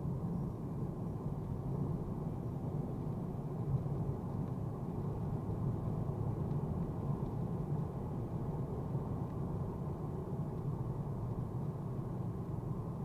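Mercedes-AMG A35 driving at a steady pace on a wet road: a constant low drone of engine and tyre noise, with no change in pitch.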